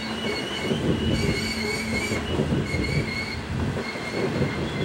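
Loaded coal hopper cars rolling past on a curve, their wheels rumbling and clattering on the rails, with high wheel squeals that come and go.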